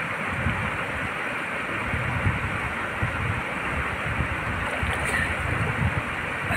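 Steady rush of flowing river water, with irregular splashing and sloshing as a swimmer moves in the pool and breaks the surface near the end.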